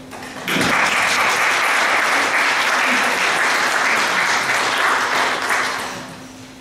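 An audience claps in a hall. The applause starts about half a second in, holds steady for about five seconds and fades out near the end.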